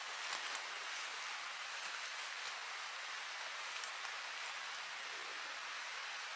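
Steady hiss of light drizzle, with a few faint ticks in the first few seconds.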